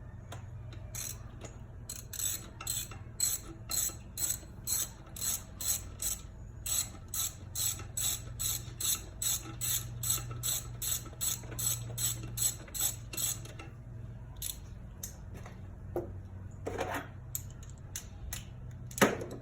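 Hand socket ratchet clicking at about three clicks a second as it backs out a coil-pack hold-down bolt, then a few scattered clicks and a single loud knock near the end.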